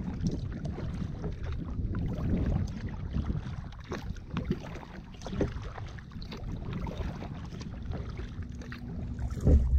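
Kayak paddling: paddle blades dipping and dripping in calm water in small splashes, over wind noise on the microphone, with a louder bump near the end.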